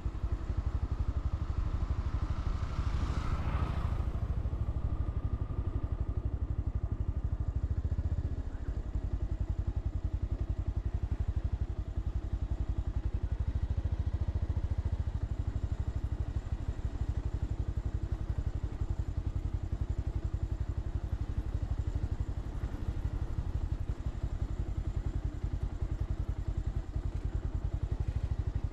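Motorcycle engine running steadily, a fast even low pulse throughout. A brief louder rush of noise comes about three seconds in.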